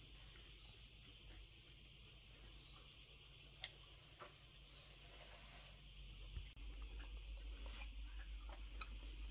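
Faint, steady high-pitched insect chorus, pulsing a few times a second, with one sharp click about three and a half seconds in.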